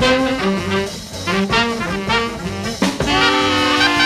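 Live jazz jam ensemble of two trumpets and three tenor saxophones with piano, guitar, bass and drums. The horns play short repeated riff figures over the rhythm section, then after a sharp drum hit about three seconds in they swell into held notes with a trumpet line on top.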